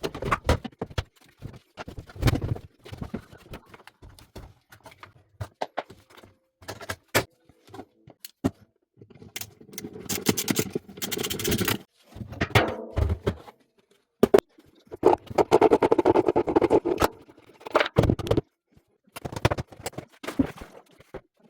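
Repair work on a washing machine with a failed drum bearing: scattered sharp clicks and knocks of tools and metal parts, with longer stretches of rattling and scraping about halfway through and again two-thirds through.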